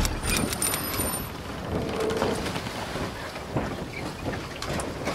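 Intro sound effect: a steady rushing noise, like rain or wind, with scattered short clicks, most of them in the first second and a few more near the end.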